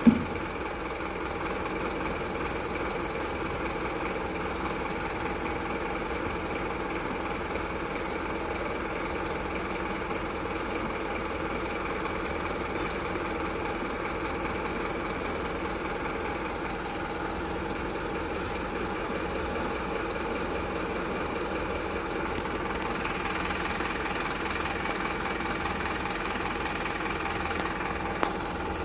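Truck engine idling steadily, an even, unbroken running hum. A sharp click sounds at the very start, and a faint one near the end.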